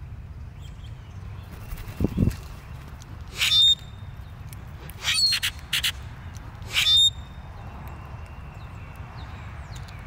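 Blackbirds at a seed feeder giving short, harsh calls in three bouts about a second and a half apart, with a dull low thump shortly before the first.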